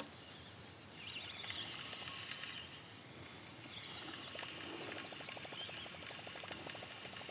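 Faint early-morning lake ambience: birds chirping and singing, joined about five seconds in by a rapid low trill. A single sharp click at the very start.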